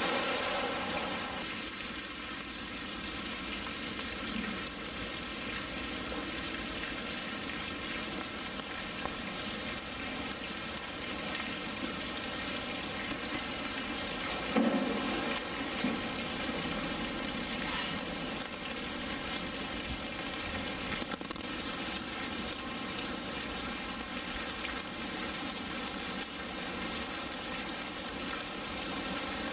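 Steady rush of running water, with a brief louder knock about halfway through.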